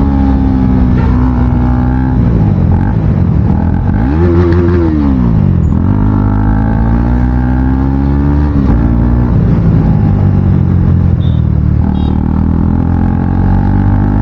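KTM Duke 250's single-cylinder engine running loud with its exhaust silencer removed while being ridden. The revs climb and fall with the throttle and the gear changes: a quick rev up and down about four seconds in, a long pull that drops off sharply a little before halfway, then another climb near the end.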